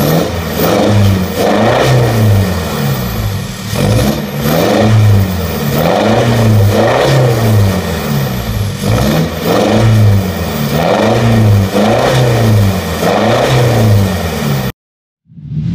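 Isuzu D-Max four-cylinder turbo-diesel engine revved over and over through an aftermarket turbo-back exhaust, heard at the tailpipe. Each rev rises and falls, about once a second. The sound cuts off suddenly near the end, and a brief whoosh follows.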